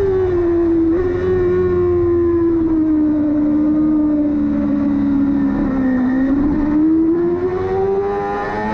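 Yamaha R6 supersport motorcycle's inline-four engine running at high revs. Its pitch sags slowly for about six seconds, then climbs again as the bike accelerates.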